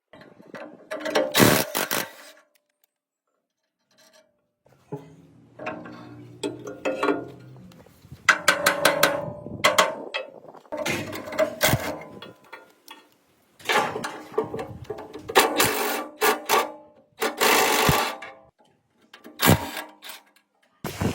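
Bursts of clinking, knocking and scraping as metal machine parts are worked by hand, some strikes ringing briefly, broken by sudden dead-silent gaps.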